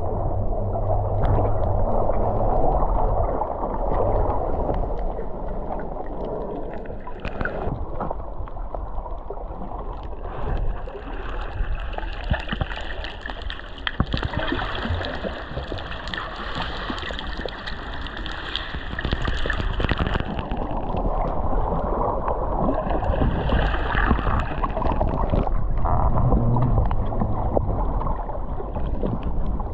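Water sloshing and gurgling around a GoPro camera in the sea, a continuous rushing wash that swells and eases.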